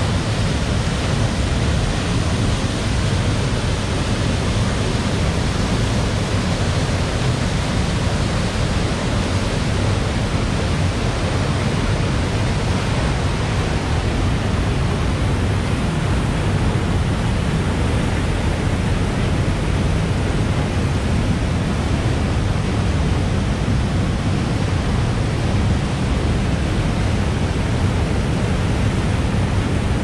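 Waterfall pouring into a plunge pool: a steady, loud rush of falling and churning water.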